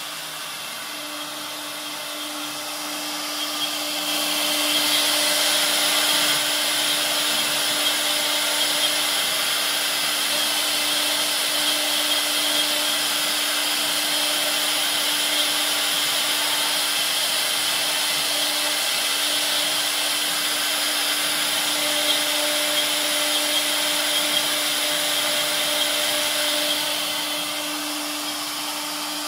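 CNC router spindle running with a steady whine while engraving wood. About four seconds in, a louder rushing noise joins it as the bit cuts, and it eases off again near the end.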